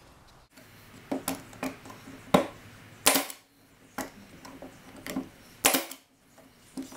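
Pneumatic brad nailer firing brads through a wooden edge strip into a plywood panel: a series of sharp snaps about a second apart, some louder than others.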